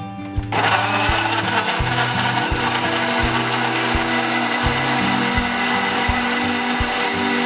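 Electric kitchen blender switching on about half a second in and running steadily, with background music and a steady beat underneath.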